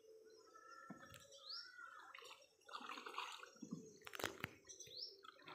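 Faint water sloshing and dripping as a person wades and moves through the creek water, with a sharp click about four seconds in.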